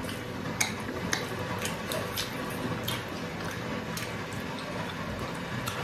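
Someone eating momo dumplings: irregular soft clicks and smacks of chewing, about one or two a second, over a steady low hum.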